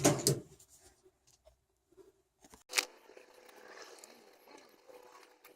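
Quiet handling of tools and small objects, with one sharp click a little under halfway through.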